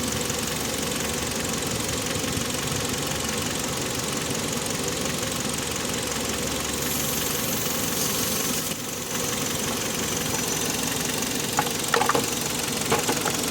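Car engine idling with the A/C on max while R-134a refrigerant hisses steadily from the can through the charging hose into the low-pressure service port; the hiss turns brighter about seven seconds in and drops out briefly near nine seconds. A few light clicks near the end.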